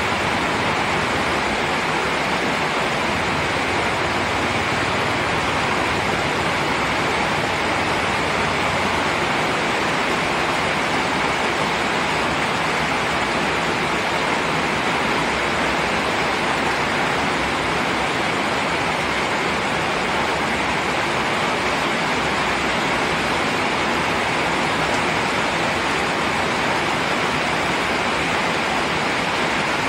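Steady rain, an even hiss with no single drops or thunder standing out.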